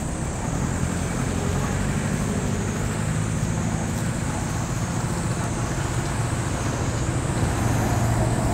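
Steady low rumble of road traffic or a running engine, growing slightly stronger near the end, with a continuous high-pitched drone over it.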